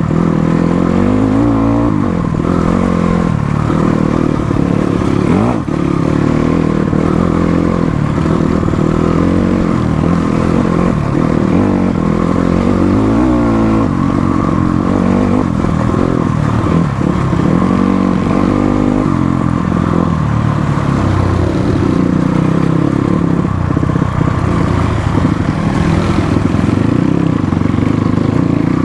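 Motorcycle engine running while being ridden off-road, its pitch rising and falling again and again as the throttle opens and closes.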